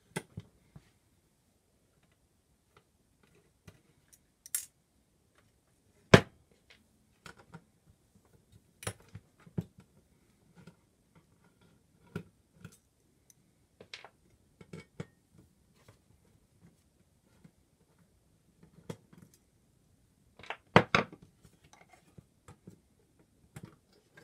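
Scattered clicks, taps and knocks of a metal disk-drive chassis, small screws and a screwdriver being handled on a wooden bench as the drive is taken apart. The loudest is a sharp knock about six seconds in, with a short clatter near the end.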